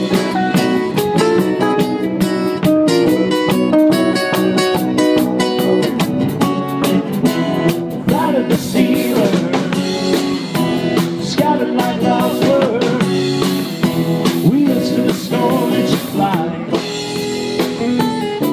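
Live band playing: acoustic guitar and electric guitars over a drum kit, with a wavering lead line through the middle.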